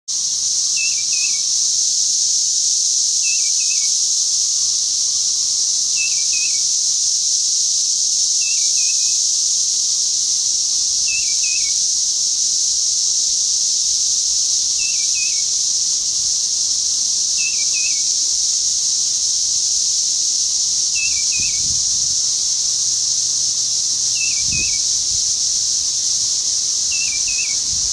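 A bird repeats a short two- or three-note chirp about every two to three seconds over a loud, steady, high-pitched drone of insects. There are a couple of low thumps near the end.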